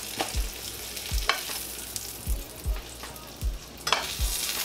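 Hot oil sizzling in a frying pan with pork-shoulder drippings still in it, as a steady hiss with scattered pops, and a few sharp clicks and low knocks from tongs working in the pan.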